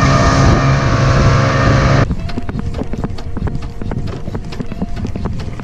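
A boat running fast across open sea: a steady engine drone under the rush of water and wind, cutting off about two seconds in. After that, a quick, uneven run of light clicks over a quieter background.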